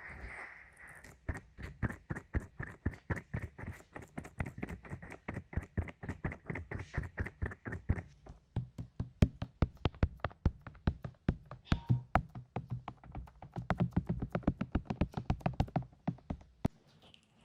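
ASMR tapping: quick, sharp taps at about six a second, stopping shortly before the end.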